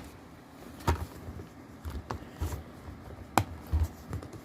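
Plastic DVD case handled as the DVD is put back into it: a few sharp clicks and knocks, the loudest about three and a half seconds in, over soft handling noise.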